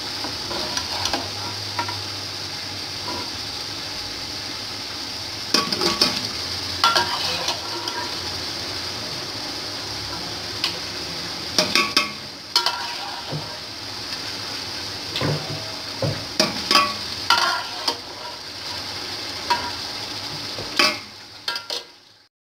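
Masala and boiled beef pieces sizzling in hot oil in a cooking pot, with a spoon scraping and knocking against the pot in short bursts as it is stirred. The sound falls away at the very end.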